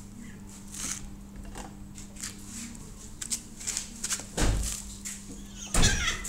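A cat licking and eating from a spoon right at the microphone: a run of small wet clicks and ticks, with two louder knocks, one about four and a half seconds in and one near the end, as its face bumps the camera. A steady low hum runs underneath.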